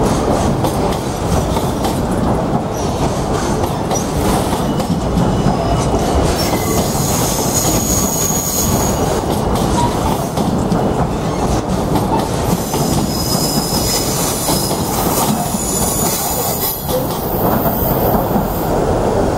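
Freight train's container wagons rolling through a curve: a steady rumble with wheel clatter. High-pitched wheel squeal comes in about seven seconds in and again over the last several seconds.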